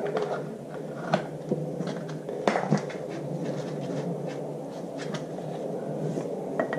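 Plastic gear-oil bottle being handled and opened: a few scattered sharp clicks and rattles from its cap and flexible pour spout, over a steady low background noise.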